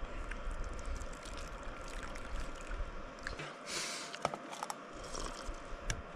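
Hot water poured from a vacuum flask into a small plastic cup, followed by a short hissing sip about three and a half seconds in, with a few light clicks of the cup and flask lid near the end.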